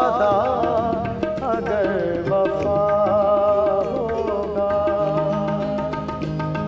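Tabla and keyboard accompaniment for a qawwali-style ghazal. A melodic line glides and wavers over the tabla strokes for the first few seconds, then settles into steadier held notes.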